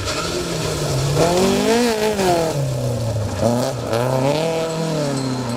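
Rally car engine revving hard and easing off twice: the pitch climbs to a peak about two seconds in, drops, cuts briefly, then climbs again and falls away.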